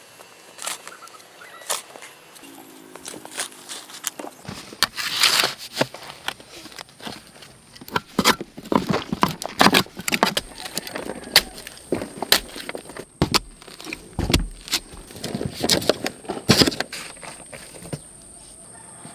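Irregular clicks, knocks and scrapes in an uneven run, with louder strikes clustered between about five and seventeen seconds in.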